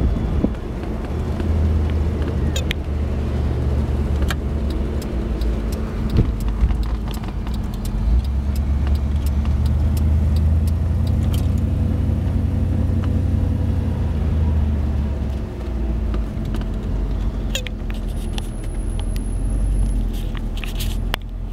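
A 1955 Cadillac's V8 heard from inside the car while driving: a low engine drone that swells and eases several times with the throttle, over road noise. Scattered light clicks and rattles.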